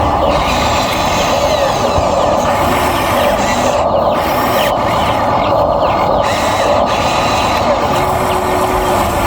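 Electric motors and plastic/metal gearboxes of a Huina RC excavator whirring steadily under load, with short higher whines rising and falling as the motors change speed.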